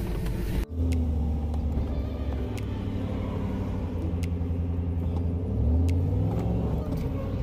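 Truck engine running as the truck drives, heard from inside the cab. Its note is steady, then rises and grows louder about six seconds in as it speeds up.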